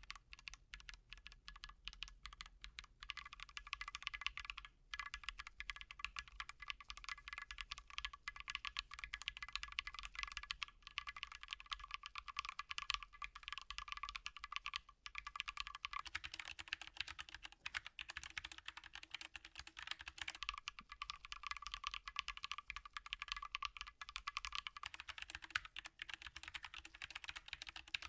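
Continuous fast typing on a custom mechanical keyboard with Holy Panda tactile switches: a dense run of key clicks and clacks, pausing briefly twice.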